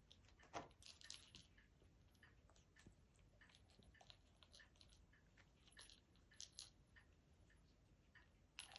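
Faint, scattered clicks and crunches from a cat pushing a plastic treat toy about with its nose and chewing.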